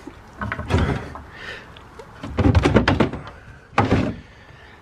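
Drawers sliding open and shut, with clattering and knocks: a dense rattle in the middle and one sharp knock near the end.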